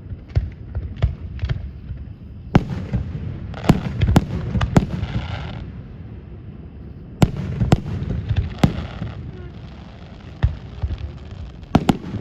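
Aerial fireworks display: volleys of sharp shell bursts going off in quick runs with pauses between them, and a crackling hiss after one volley about five seconds in.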